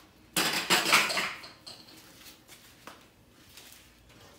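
A brief metallic clatter of car parts being handled, starting about half a second in and lasting about a second, followed by a few faint knocks.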